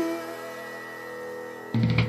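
Background music: held notes slowly dying away, then a new note with a low bass tone struck near the end.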